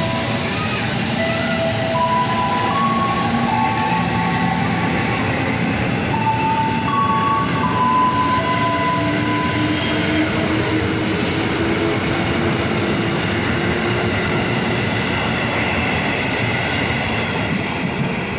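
KRL electric commuter train running, a steady rumble and rush of wheels on rails. Over it an electric motor whine rises slowly in pitch through the middle as the train picks up speed.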